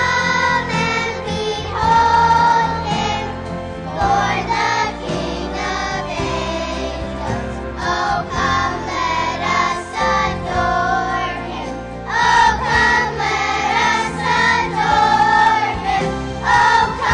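A children's choir singing a song together over musical accompaniment, holding long sung notes.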